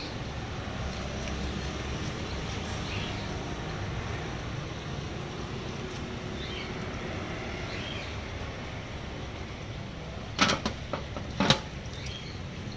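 Steady roadside traffic hum, with two sharp knocks about a second apart near the end.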